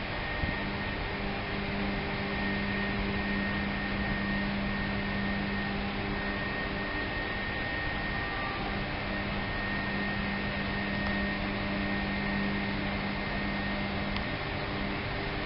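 A steady low hum with a faint, wavering high whine over a constant hiss; no distinct events.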